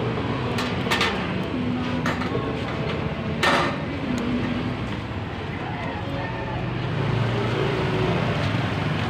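Wire mesh grate clinking as it is set down onto the metal box of a charcoal grill, with a louder clatter about three and a half seconds in, over a steady low engine hum of street traffic.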